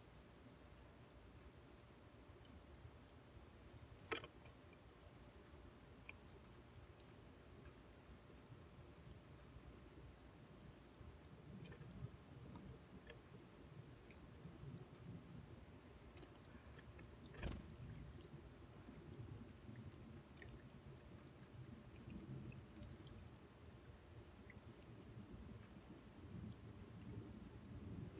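Faint outdoor near-silence with an insect chirping high and evenly, about three chirps a second with brief pauses. Two sharp clicks stand out, one about 4 seconds in and one about 17 seconds in.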